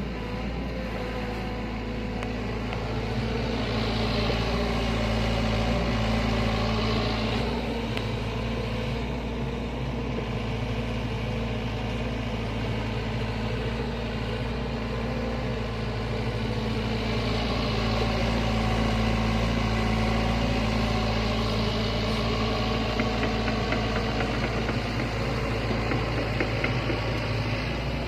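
Sany excavator's diesel engine running steadily while it works, the engine swelling louder twice, a few seconds in and again past the middle.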